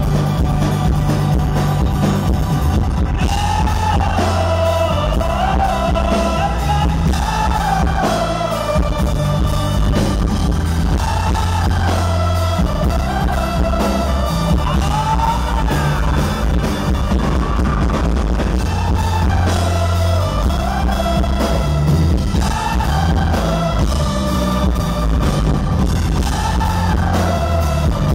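Live rock band playing through a PA, with singing over guitar, drums and strong bass, heard from the audience.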